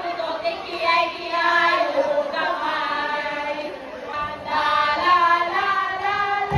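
A group of voices singing together in long held notes, with a short break about four seconds in.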